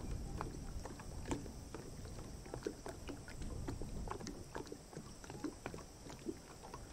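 Wetland field sound: many short, scattered animal calls over a steady low rumble and a faint steady high hiss.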